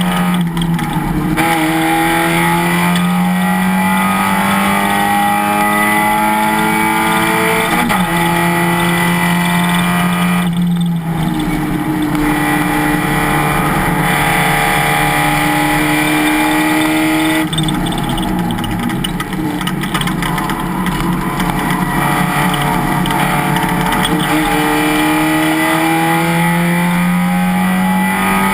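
Race car engine running hard, its pitch climbing through the revs again and again with short breaks at the gear changes. About two-thirds of the way through it eases off and goes uneven, as if lifting for a corner, then pulls up in pitch again.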